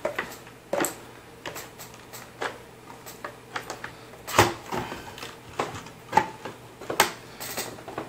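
Scattered clicks and knocks of a Cherry MX Board 6.0 mechanical keyboard and its plastic palm rest being handled, fitted together and set down on a table, with two sharper knocks about four and a half and seven seconds in.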